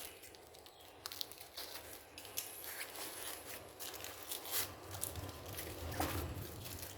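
Parcel packaging being handled and opened: plastic rustling and crinkling, with scattered small clicks and taps and a louder knock about six seconds in.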